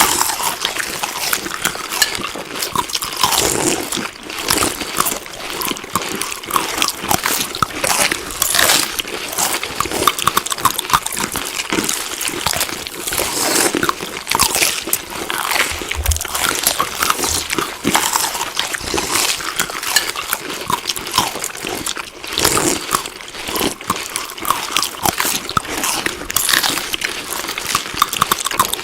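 Chewing food: a dense, continuous run of wet, crunchy bites and mouth clicks.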